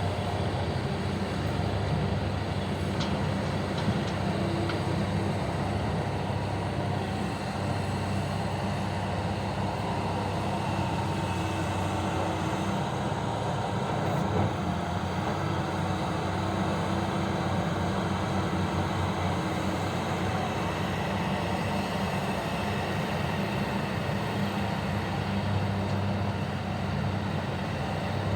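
Heavy diesel mining machinery running steadily: a continuous low engine drone with no pauses or sharp changes.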